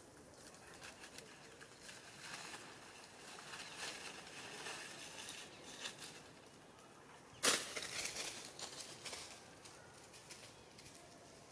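Leaves and twigs rustling as macaques shift about on a leafy branch, faint and irregular, with one sudden louder rustle about seven and a half seconds in that trails off over the next two seconds.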